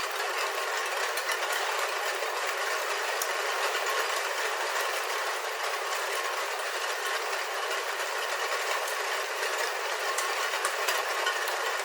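Rain on a roof heard from inside: a steady, even hiss of rainfall with many small sharp ticks of single drops striking the roof.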